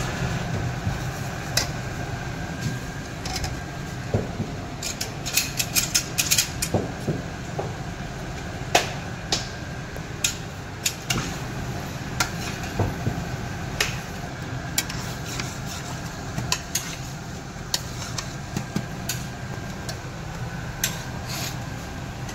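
Steel spatula stirring a potato and capsicum stir-fry in a stainless-steel pan, scraping and clinking irregularly against the metal, over a steady low hum.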